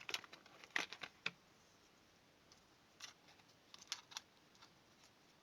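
Faint, scattered clicks and taps of small plastic magnetic door/window alarm units being handled, about six in all; no alarm tone sounds.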